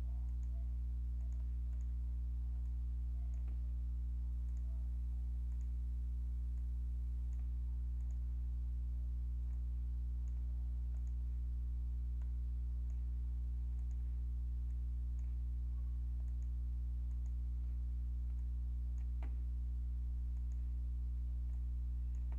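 Steady low electrical hum on the recording, with a couple of faint mouse clicks, one a few seconds in and one near the end.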